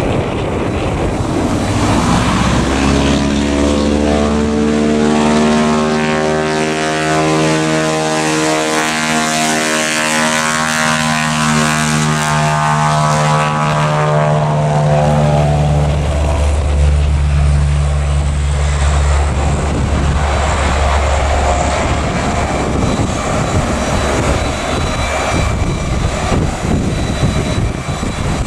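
Propeller airplane flying past, its engine drone building and then dropping in pitch about halfway through as it goes by.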